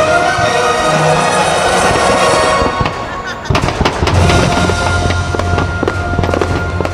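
Fireworks show: firework bangs and crackles over the show's music soundtrack. The crackling thickens in the second half after a brief lull about halfway through, with a deep held note underneath.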